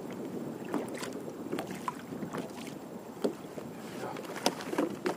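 Water lapping and sloshing against a fishing kayak's hull, with scattered small knocks and clicks.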